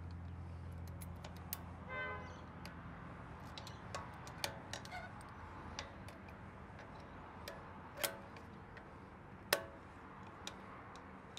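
Light metallic clicks and ticks from pliers working a steel split pin out of the front axle hub nut of a Toyota Land Cruiser 200. The clicks come irregularly, with a short ringing clink about two seconds in and two louder clinks in the second half.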